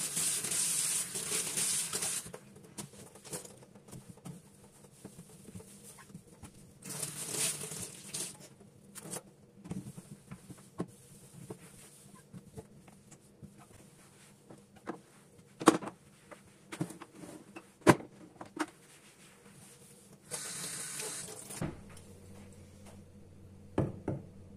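Household cleaning sounds: three short bursts of hissing, at the start, about seven seconds in and about twenty seconds in, between scattered light clicks and two sharp knocks in the middle.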